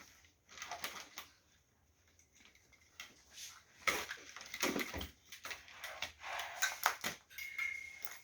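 Irregular clicks, taps and rustling, sparse at first and busier from about four seconds in.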